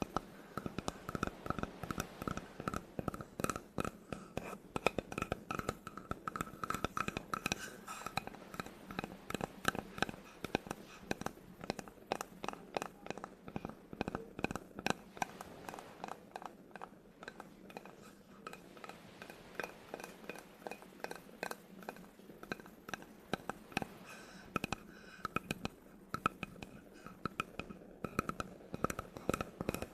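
Close-up tapping and scratching on a wooden object: a dense, irregular stream of quick taps and clicks throughout.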